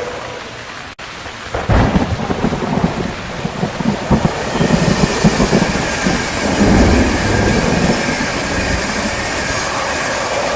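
Steady rain with a long rolling rumble of thunder that breaks in about two seconds in and slowly dies away near the end. Just before it the sound briefly dips and cuts out for an instant.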